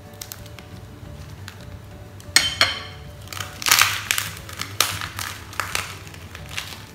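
Crisp, crunching bites into a rice paper roll of boiled pork and scallions, a run of separate crunches starting about two seconds in, over soft background music.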